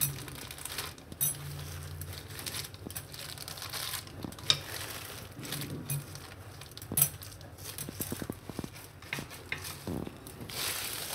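Wooden rolling pin rolled back and forth over dough sandwiched in a thin plastic sheet on a stone countertop: the plastic crinkles and rustles, with scattered light clicks and taps from the pin.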